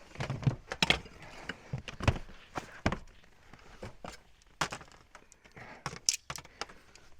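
Irregular clunks, knocks and scrapes of someone clambering about and handling gear on a steep, slick wet roof. The loudest knocks come in the first three seconds, with more around the middle and near the end.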